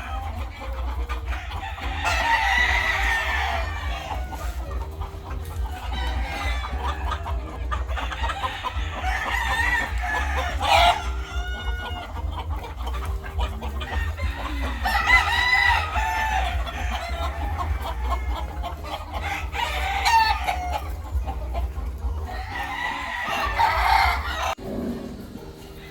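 Game roosters (fighting cocks) crowing over and over, with clucking between the crows, over a steady low hum.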